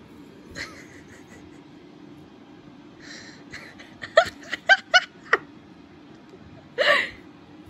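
A person laughing: a quick run of about six short giggles from about four seconds in, then one breathy laugh near the end.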